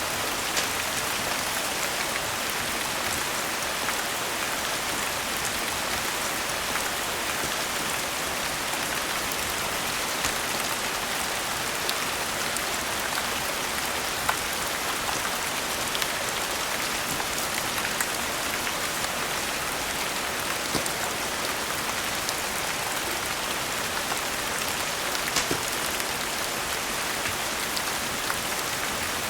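Steady rain falling as an even hiss, with occasional sharp crackles and pops from a wood fire in a fireplace.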